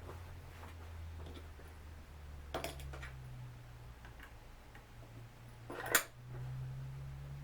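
Light clicks and taps of small hand tools working on the drone's plastic body, with two sharper clicks a few seconds apart, over a low steady hum.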